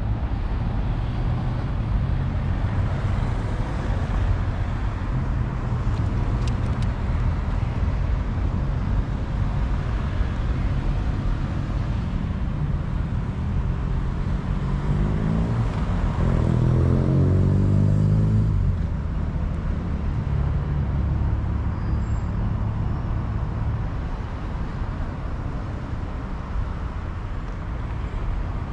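Steady city road traffic rumbling. About halfway through, one motor vehicle passes close, its engine rising in pitch as it accelerates, and is loudest about two thirds of the way through before fading.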